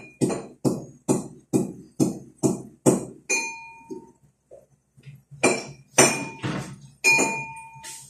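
Metal kitchenware clinking and knocking in a steady rhythm, about two and a half strikes a second, each with a short ring. The strikes stop for about two seconds a little before the middle, then start again less evenly.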